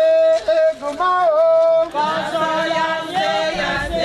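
Unaccompanied Ejagham ceremonial chanting: one voice holding long sung notes, then several voices singing together from about two seconds in.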